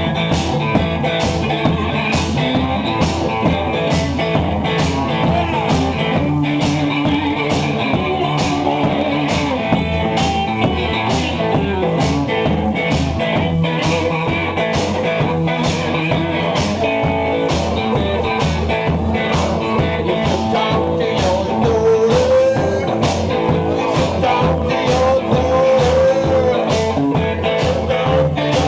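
A small live band plays blues-rock: guitar over a steady, driving drum beat.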